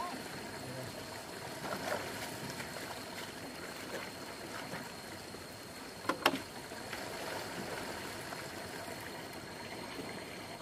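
Stream water running steadily, with a few short knocks, the sharpest about six seconds in.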